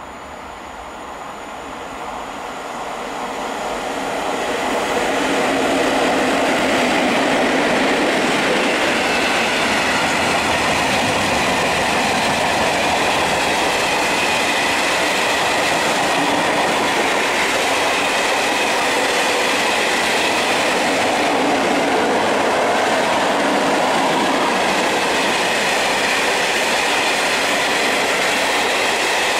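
Freight train hauled by a PKP Cargo ET41 twin-section electric locomotive passing through a station. It grows louder over the first five seconds as it approaches, then a long line of loaded open wagons rolls past with a steady, loud rumble of wheels on the rails.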